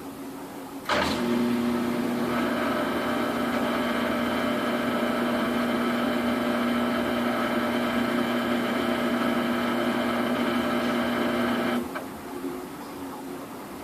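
Samsung washing machine running through its spin cycle with a load of duvets: a steady hum at one pitch starts suddenly about a second in and cuts off abruptly near the end, over a fainter steady whir.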